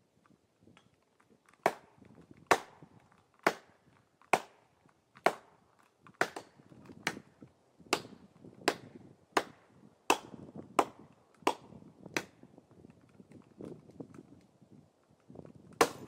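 Sledgehammer driving a wedge into the felling cut of a large tree: about fourteen sharp blows, a little under a second apart, then a pause and one more blow near the end.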